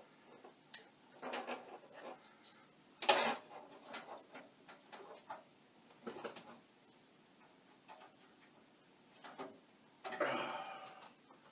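Handling noises at a workbench: scattered clicks and light knocks as small parts and connectors are moved and plugged, with a sharper knock about three seconds in and a second-long rustling scrape near the end.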